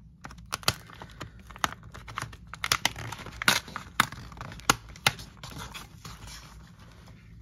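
Fingers and fingernails scratching and prying at the perforated cardboard door of a chocolate advent calendar, tearing it open. There is a string of sharp clicks and scratchy rustling that thins out after about five seconds.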